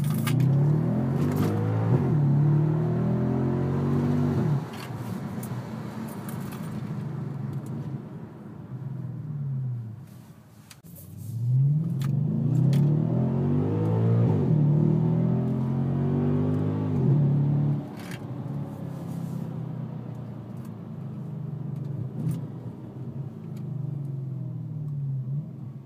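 Audi S5 engine through a Milltek non-resonated exhaust, heard from inside the cabin: it revs hard under acceleration twice, its pitch rising through each pull for several seconds. After each pull the engine note falls away as the throttle is lifted, with a few sharp clicks along the way.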